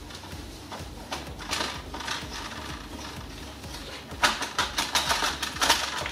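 Ratchet wrench clicking as the nuts holding a wheel cover are backed off. The clicks are sparse at first, then come in quick runs from about four seconds in.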